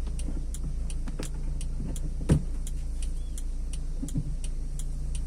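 Car driving slowly with its unbolted wheel-arch liner hanging loose: a steady hum of engine and road with a regular ticking about three times a second as the loose liner rubs underneath, and one louder knock a little past halfway.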